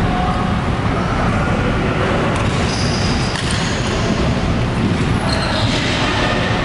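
Badminton being played: shoes squeaking on the court floor and rackets hitting a shuttlecock, over a loud, steady sports-hall din.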